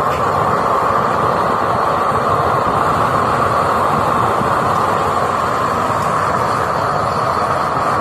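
Improvised oil-burning stove running on forced air from its electric blower: a steady, even rushing of the fan-blown flame at the pipe burner.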